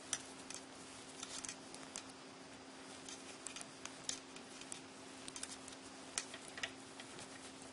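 Metal knitting needles clicking and tapping against each other as stitches are worked, in light, irregular clicks, some in quick clusters.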